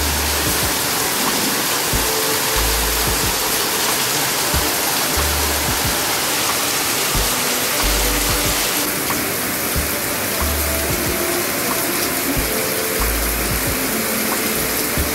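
Heavy rain falling steadily, a dense hiss, with soft background music of held bass and melody notes laid over it. The rain's hiss turns duller about nine seconds in.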